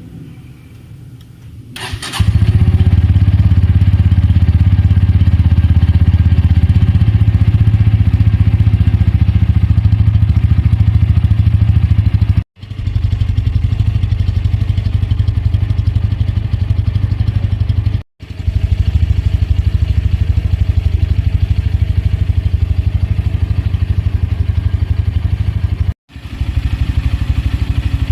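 Bajaj Pulsar N150's single-cylinder engine, heard through its underbelly exhaust, starts about two seconds in and runs at a steady idle. The sound cuts out abruptly and briefly three times.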